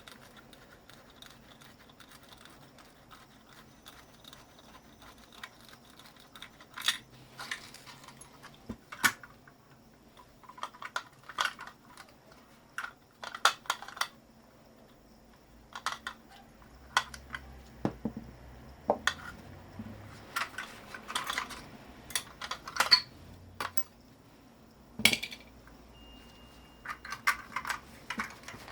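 Irregular metallic clinks, taps and knocks of small metal parts and hand tools being handled and set down while a scrap electric motor is dismantled for its copper.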